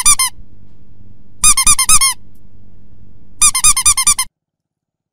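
Rapid, high, squeaky chirps in three quick bursts, a comic sound effect laid over the pictures, with a low steady hum beneath; all sound cuts off suddenly about four seconds in.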